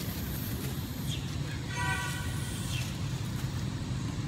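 Steady low rumble of road traffic, with a short vehicle horn toot about two seconds in.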